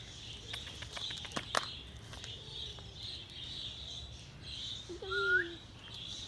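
Birds chirping steadily in the background, with a few sharp clicks about a second in and one short animal call with a rising end about five seconds in, the loudest sound.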